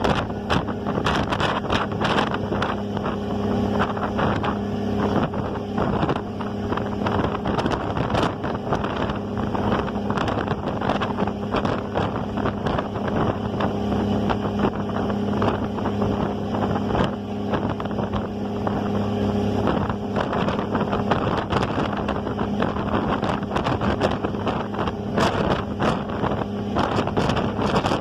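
A ferry's engine droning steadily in a low hum, with wind buffeting the microphone and water noise around it.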